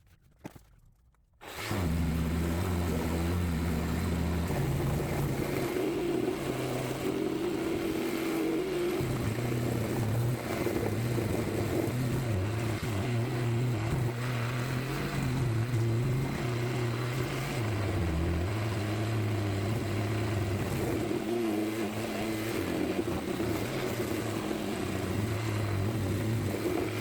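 A motor-driven tool starts about a second and a half in and runs steadily, its hum dipping and rising slightly in pitch.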